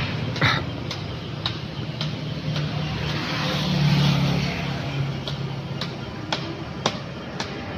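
Road traffic with a motor vehicle's engine humming, swelling about four seconds in as it approaches, and a scattering of sharp clicks throughout.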